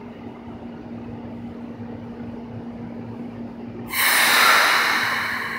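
Keikyu 1000-series electric train standing at the platform with a steady low hum. About four seconds in comes a sudden loud hiss of compressed air that fades over the next second or so, typical of the air brakes releasing just before the train pulls away.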